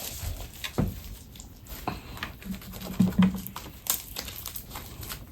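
Sticky homemade slime being squeezed and stretched by hand, with scattered small clicks and squelches.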